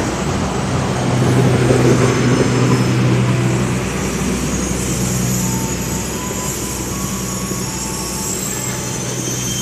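Passenger coaches of a long-distance train rolling past along the platform as it pulls into the station: a steady rumble of wheels on rail, with a low hum loudest in the first few seconds and thin high-pitched squealing in the second half.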